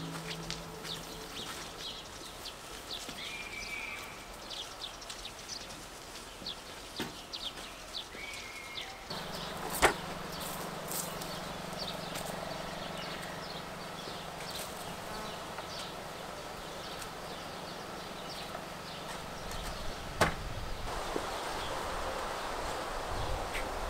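Outdoor ambience full of short, high, repeated chirps from small birds or insects, with a few sharp knocks, the loudest about ten and twenty seconds in. A steady low hum sets in about nine seconds in.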